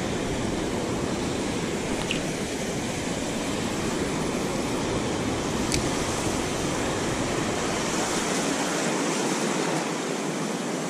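Ocean surf breaking and washing up the beach: a steady rush of waves, which are running about three and a half feet and fairly calm.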